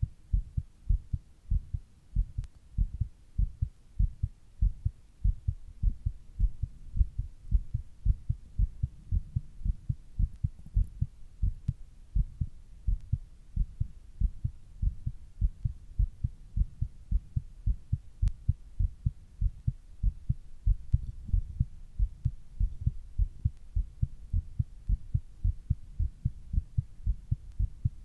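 A person's heartbeat recorded close up: dull low thumps repeating in a steady, fast rhythm.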